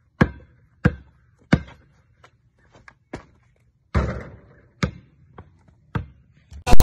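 A basketball bouncing on a paved driveway: three dribbles about two-thirds of a second apart, then a shot hitting the backboard and rim about four seconds in, with a short ringing. The ball then bounces a few more times, and a sharp, loud knock comes just before the end.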